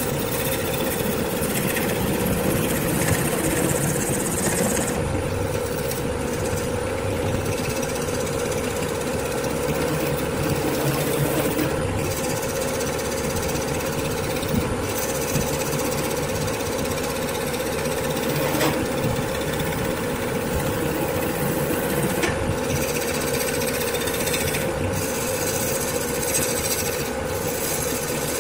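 Wood lathe running with a turning tool cutting a spinning blank: a steady machine hum with a continuous rough, chattering cut as long ribbon shavings peel off.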